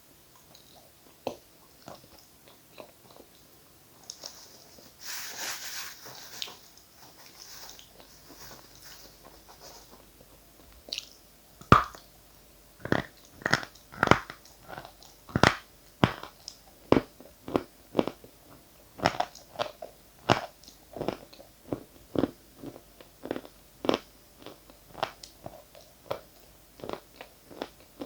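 Close-miked eating of dry edible chalk: a few faint clicks and a brief soft rustle, then a loud snap of a bite about twelve seconds in, followed by steady crunching chews, about one to two crunches a second.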